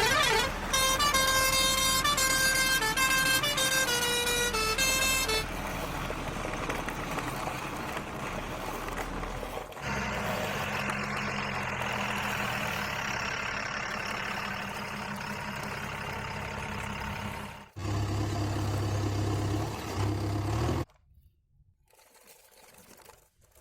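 Electronic sound effects from battery-powered toy vehicles: a short tune of beeping notes, then steady horn- and motor-like hums that change a few times. It stops about three seconds before the end.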